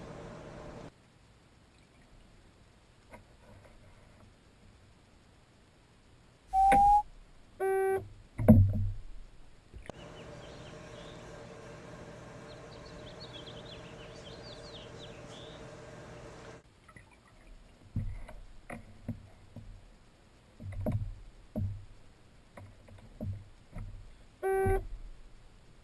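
Underwater hearing-test sounds. A short 800 Hz test tone sounds once, and a buzzy electronic beep sounds twice, about 8 s in and near the end. Between them come low water thuds and splashes from the seal moving, plus a steady hum for several seconds in the middle.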